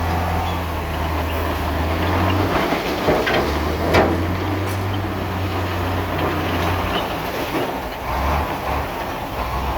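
Diesel engine of heavy earthmoving machinery running with a steady low hum that dips and eases a couple of times. A sharp metallic clank about four seconds in, with a few lighter knocks.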